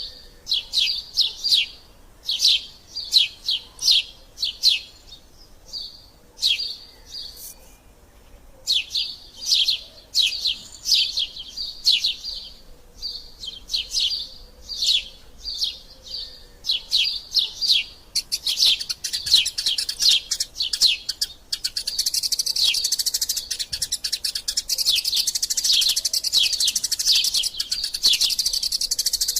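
Eurasian tree sparrows chirping in quick runs of short, high notes. About two-thirds of the way through, the chirps thicken into dense, unbroken chattering.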